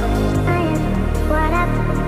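Background music: a melody over held low notes.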